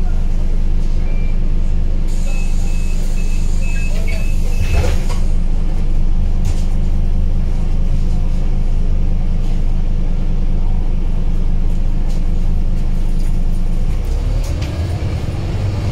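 Scania OmniCity bus engine idling, heard from inside the passenger saloon while the bus stands at a stop. A run of about six short high beeps, typical of a bus door warning, is followed about five seconds in by a short hiss of air. Near the end the engine note rises as the bus pulls away.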